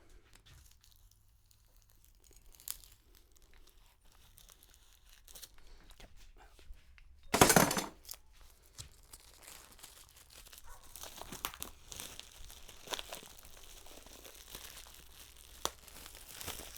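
Packaging being torn open and crumpled off a new book: quiet handling at first, one loud rip about seven seconds in, then a steady run of crinkling and rustling.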